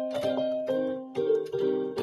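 Piano played solo: notes and chords struck a few times a second, each ringing on under the next.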